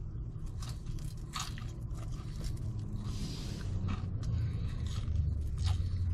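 Close-up chewing of french fries, with short crackling mouth clicks and a brief rustle about three seconds in, over a steady low rumble.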